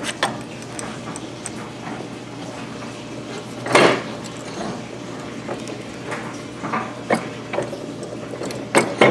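Scattered metallic clicks and knocks from an arbor press and an OS FS-40 aluminium crankcase being handled on it, with one louder clatter about four seconds in, as a ball bearing is pressed into the crankcase.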